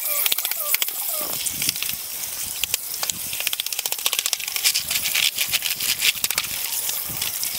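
Water running and splashing over a computer keyboard as it is washed to free stiff, jammed keys, with many sharp plastic clicks and rattles from the keys and case being handled.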